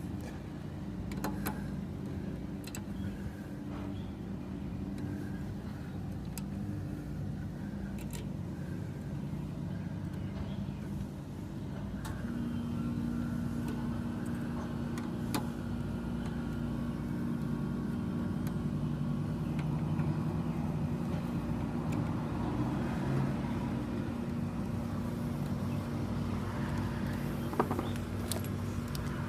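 Steady low machine hum with several held tones, a little louder after a new tone joins about twelve seconds in, with a few light clicks.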